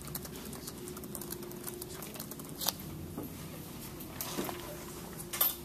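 Pencils writing and tapping on paper at desks close by, a patter of small scratches and clicks with some paper crinkling. There are two sharper clicks, one about halfway and one near the end, over a faint steady hum.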